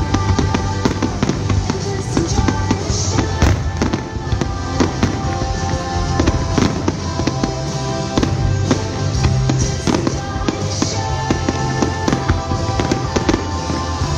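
Fireworks display: aerial shells bursting in a dense run of bangs and crackles, with music playing throughout.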